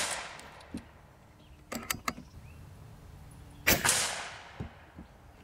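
AirForce Condor .22 PCP air rifle shooting: the report of a shot fading out, a few sharp clicks of the action being worked about two seconds in, then another loud shot a little before four seconds, trailing off over about a second.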